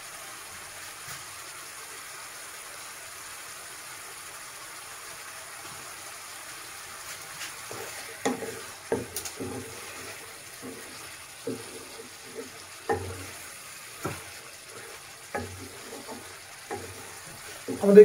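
Chicken masala gravy sizzling steadily in a pan on the stove, nearly done. From about halfway, a spoon stirs it with irregular knocks and scrapes against the pan.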